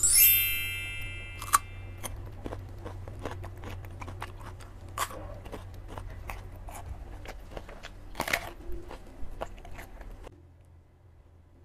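A bright chime sound effect rings for about two seconds, then crunchy bites and chewing of raw white radish (daikon), with louder crunches about five and eight seconds in; the chewing stops a little after ten seconds.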